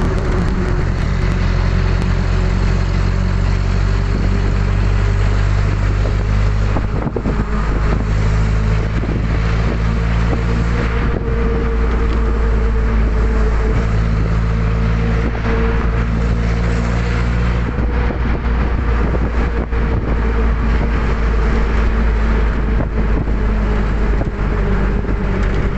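A road vehicle's engine and road noise heard from inside the cabin while driving: a steady low drone with a faint whine that rises slightly about seven seconds in and drops back later on.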